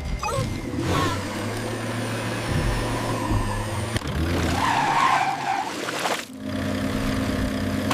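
Cartoon vehicle sound effects: an engine running, with a tyre skid around the middle.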